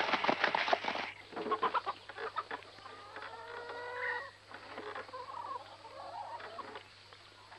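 Chickens clucking in a barn, a handful of separate calls with one longer rising call near the middle. The first second holds a short burst of crackling clatter.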